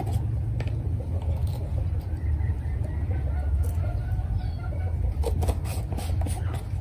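Light clicks and taps of small spice jars and a spoon being handled over a wok, a few of them late on, over a steady low rumble. A hen clucks faintly in the background.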